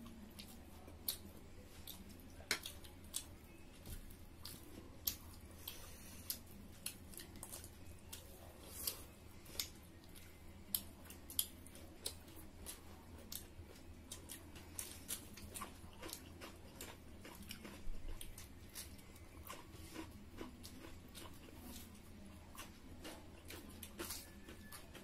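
Close-up eating sounds of people eating pork curry and rice by hand: chewing, with irregular sharp mouth smacks and clicks. A faint steady low hum runs underneath.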